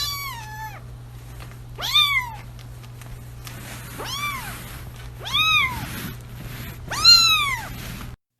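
A domestic cat meowing five times, roughly every one and a half seconds. Each meow rises and then falls in pitch, over a steady low hum.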